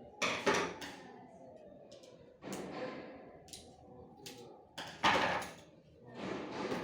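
Irregular knocks, clicks and scrapes from a printer being handled and taken apart for repair, with two loud clusters, one near the start and one about five seconds in.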